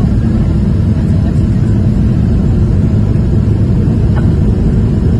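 Jet airliner cabin noise at a window seat on the approach to landing: a loud, steady low rumble of engines and rushing air.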